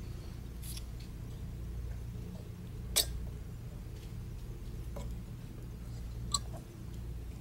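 Parts of a Carl Zeiss Standard microscope's substage being handled: three short clicks as the swing-out filter holder and condenser pieces are moved, the loudest about three seconds in, over a low steady rumble.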